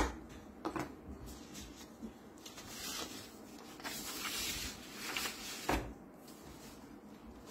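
Hands handling a plastic printer developer unit on newspaper: a few light clicks and knocks, with a stretch of paper rustling in the middle.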